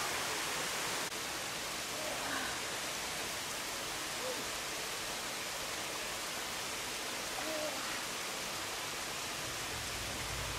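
Waterfall and stream water running as a steady rushing hiss, with a few faint short chirps over it.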